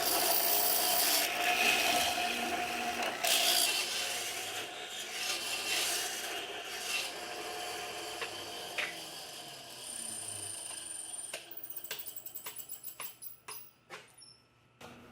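A tool rasping and scraping against wood in strokes, loudest for the first few seconds and then fading, followed by a quick run of light clicks and taps near the end.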